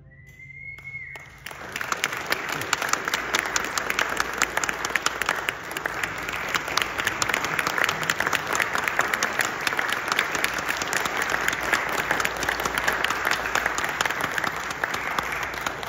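Audience applause, dense and steady, coming in about a second and a half in, preceded by a brief high whistle.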